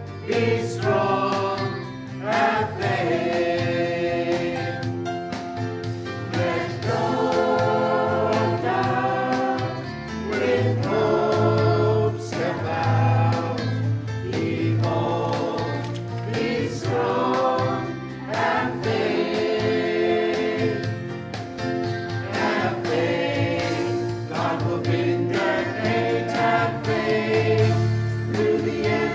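Mixed church choir of men and women singing an anthem together, in phrases that rise and break every couple of seconds.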